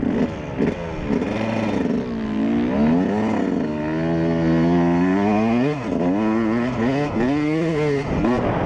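2003 Yamaha YZ125's 125 cc two-stroke single-cylinder engine revving as the bike pulls away and gathers speed: a couple of short throttle blips, then the revs climbing and dropping back several times.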